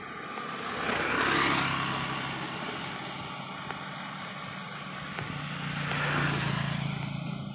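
Road traffic on a wet road. Vehicles go by twice, each with a swell of tyre hiss, about a second in and again near six seconds, over a steady engine hum.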